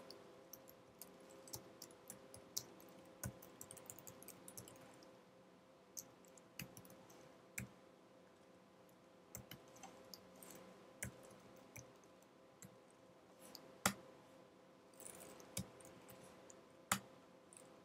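Computer keyboard keys being typed on: faint, irregular clicks with a few louder strikes in the second half, over a faint steady hum.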